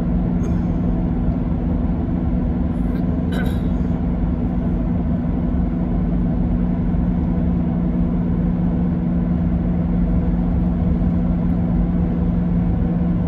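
Steady drone of engine and road noise inside a moving car's cabin, with two brief faint clicks about half a second and three and a half seconds in.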